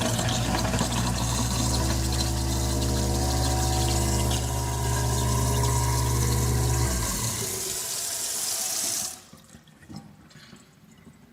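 Kitchen garbage disposal motor running with the hot tap flowing into the sink, flushing out the ground ice. The motor hum winds down about seven seconds in, and the running water cuts off about two seconds later.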